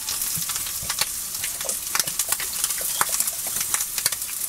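Sliced sausage frying in a hot skillet: a steady sizzle with frequent sharp crackles and pops.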